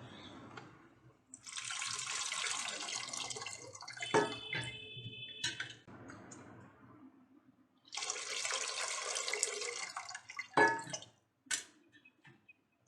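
Liquid poured into a pan of sautéed spice paste for rasam, in two pours of a few seconds each, with a few metal clinks of the vessels between and after.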